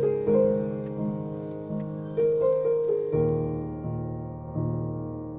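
Slow, gentle piano music: chords struck and left to fade, changing every second or so, with deeper bass notes joining about three seconds in.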